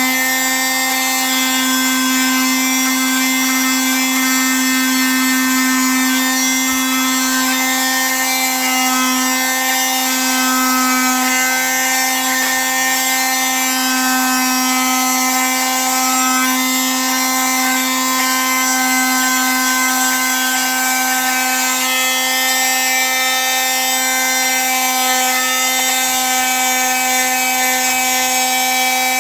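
Electric power tool running steadily at an even speed, with a steady high hiss over its motor hum.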